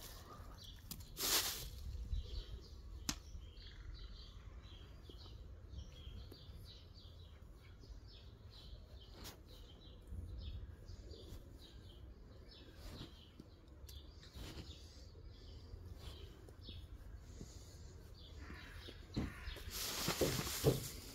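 Small birds chirping in short, repeated calls over a faint low rumble, with a brief rustle about a second in and a louder stretch of rustling near the end.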